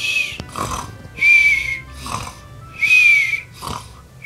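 Comic snoring: a short snore on each breath in, then a high whistle on each breath out, repeating about every second and a half.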